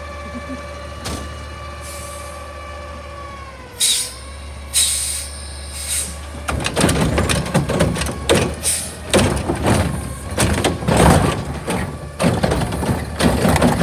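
Autocar ACX McNeilus front-loader garbage truck idling with a steady whine that dips in pitch about four seconds in, followed by a few short air hisses. From about halfway, there is loud, rapid banging and clattering as the carry can's automated arm lifts and tips a plastic wheeled cart.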